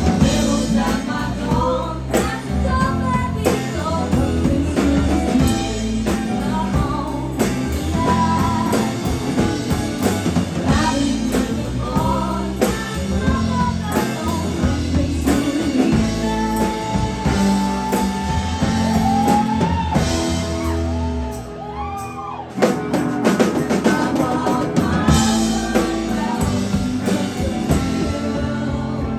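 Live rock band playing with singing, drum kit and guitar. The level drops briefly about three-quarters of the way through, then the full band comes back in.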